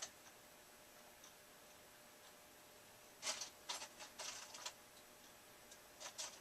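Light clicks and rattles of small hardware, such as screws, being picked through by hand: a quick run of them about three seconds in and a few more near the end, with quiet room tone between.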